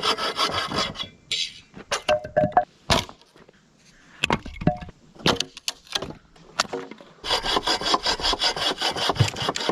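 Hand saw cutting wood in quick, even strokes. It stops after about a second, gives way to scattered knocks for several seconds, then saws steadily again from about seven seconds in.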